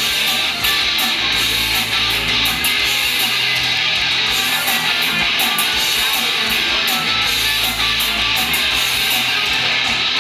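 Live rock band playing loud: electric guitars and bass guitar together, a dense, steady wall of amplified music.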